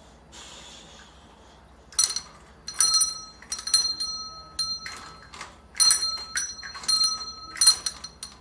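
Small metal hand bell rung over and over by a dog knocking it with its paw: quick clusters of bright, ringing clangs starting about two seconds in.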